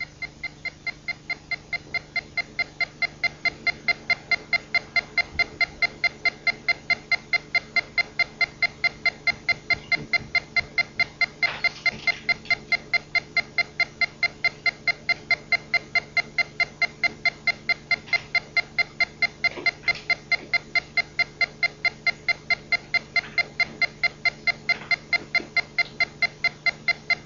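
A rapid, regular train of short electronic beeps, about four a second, keeping an even rate throughout.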